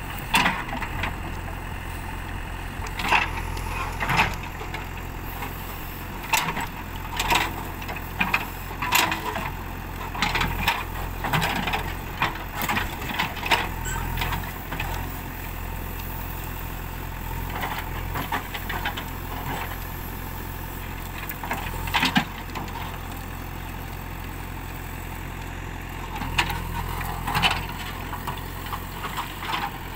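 JCB backhoe loader's diesel engine running steadily while its backhoe digs out bushes, with irregular sharp clanks and knocks from the bucket and arm linkage. The knocks come in bunches, thickest through the first half, with another loud one a little after the 20-second mark and more near the end.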